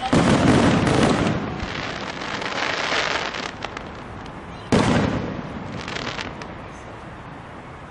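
Aerial fireworks shells bursting. A loud bang comes right at the start, followed by a few seconds of small pops and crackling. A second sharp bang comes a little under five seconds in, then dies away.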